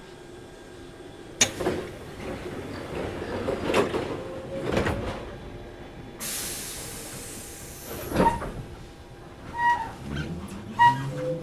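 Inside a Toyohashi Railway 1800 series resistance-control electric train at a station stop: several clunks, then a burst of air hiss about six seconds in. Near the end the traction motors start a rising whine as the train pulls away, with short beeps repeating under twice a second.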